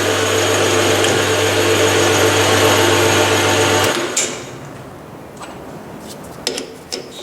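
Metal lathe running steadily with a constant motor hum, then stopping suddenly about four seconds in; light clicks and knocks follow.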